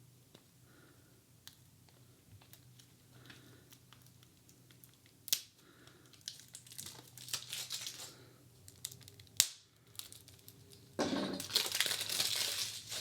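Hands handling a new deck of playing cards in its tuck box: scattered light taps and clicks, two sharper knocks, and a dense crinkling of packaging over the last two seconds.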